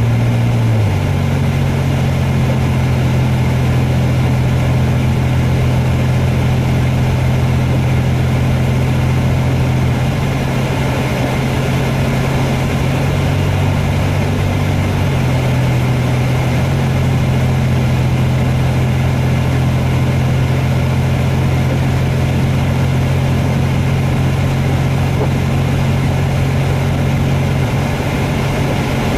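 Car interior driving noise: the engine's steady low drone with tyre and road noise on a wet, slushy snow-covered highway, heard from inside the cabin. The drone shifts slightly in pitch about ten and fourteen seconds in.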